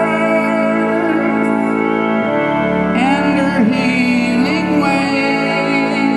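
Organ playing sustained chords, which change about two seconds in and again near five seconds.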